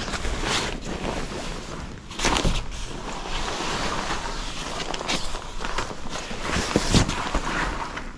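Jackets on hangers rustling and sliding along a clothes rack as hands push through them, with a few sharp knocks.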